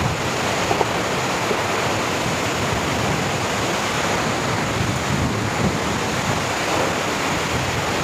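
Steady roar of the Aagaya Gangai waterfall, a tall cascade plunging onto rocks and throwing heavy spray into the air.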